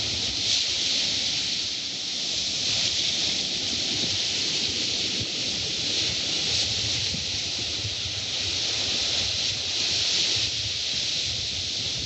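Steady hiss of surf as small waves wash up onto a sandy beach, with a low uneven rumble underneath.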